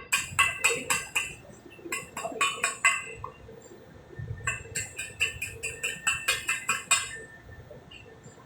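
Rapid light metal-on-metal taps, ringing clinks at about six a second, in three bursts with short pauses between.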